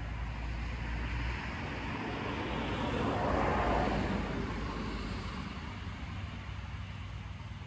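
A black SUV drives past on the road, its tyre and engine noise swelling to a peak about three and a half seconds in, then fading away.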